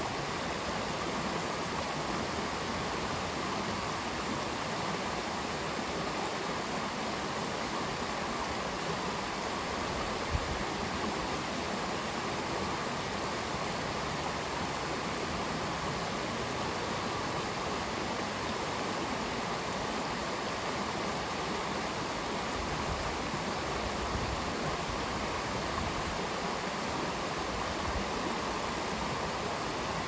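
Shallow rocky stream running over stones and small cascades: a steady, even rush of water, with one brief knock about ten seconds in.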